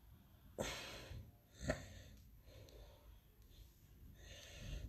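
A person breathing out audibly twice, close to the microphone: two soft breathy hisses, one about half a second in and one near the end, with a short tap between them.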